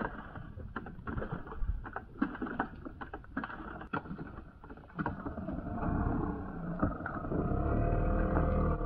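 A small wooden boat's engine: scattered knocks and clatter, then about five seconds in a motor starts running and grows louder.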